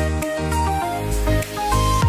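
Background music: electronic music with a synth melody over a bass line and a steady beat.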